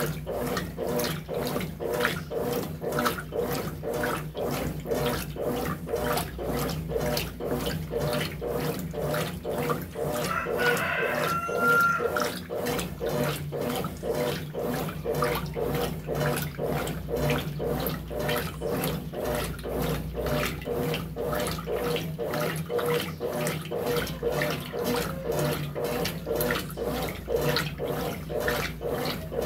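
Brastemp BWT12 12 kg top-loading washing machine agitating a load in soapy water: rhythmic swishing and sloshing, two or three strokes a second, over a steady motor hum. A brief higher-pitched sound rises over it about eleven seconds in.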